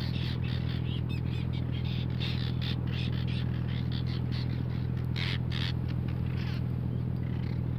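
A flock of seabirds ('jalak laut') giving many short, squawking calls, several a second, over the steady hum of the fishing boat's engine.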